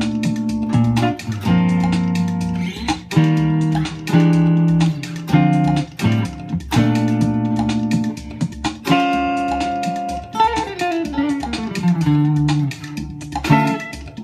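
D'Angelico EX-59 electric guitar played through an Xotic SP compressor pedal: bluesy chords struck and left to ring, then a run of single notes stepping down in pitch near the end.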